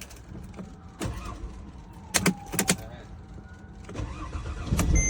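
A few sharp clicks, then the Mercedes GL 350's V6 diesel engine cranks and fires up near the end, rumbling steadily. It is being jump-started from a portable lithium jump starter in boost mode, with the car's own battery dead.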